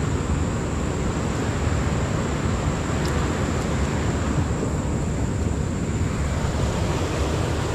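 Steady rushing noise of a fast-flowing river, with wind buffeting the microphone.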